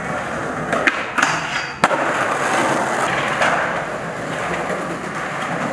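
Skateboard wheels rolling on concrete, with a few short clacks and one sharp crack of the board about two seconds in.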